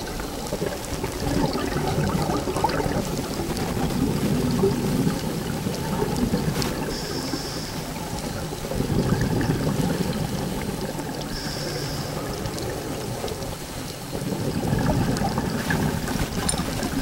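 Scuba regulator breathing underwater: bubbly bursts of exhaled air every few seconds, with a short hiss on two of the inhales.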